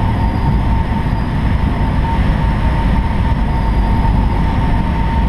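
Piper Cherokee's piston engine and propeller droning steadily, heard inside the cockpit, with a thin steady whine over the low rumble.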